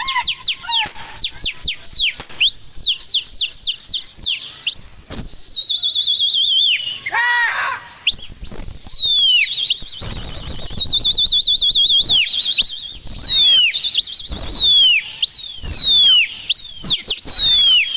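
Black kites calling overhead: repeated shrill whistles, each sweeping downward, several trailing off into a quavering trill.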